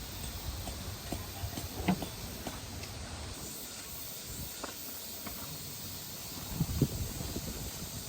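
Steady hissing outdoor background noise, with a few light knocks or taps about two seconds in and again near the end.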